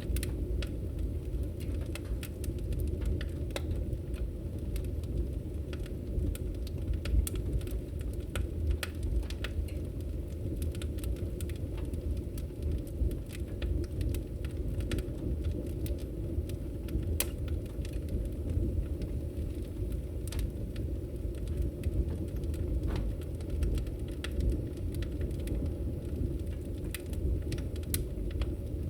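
Wood logs burning in a fireplace: a steady low rumble of flames with scattered small crackles and pops.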